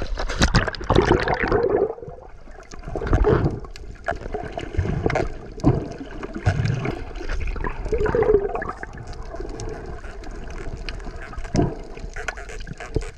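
Sea water sloshing and gurgling in uneven surges, loudest in the first couple of seconds.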